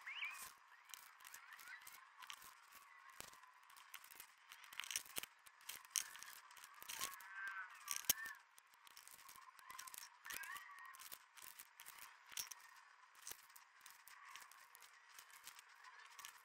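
Faint, thin clicking and rustling of planner sticker sheets and paper being handled and pressed into place with tweezers. The sound is pitched up as in sped-up footage, with many small taps and a few short high squeaks.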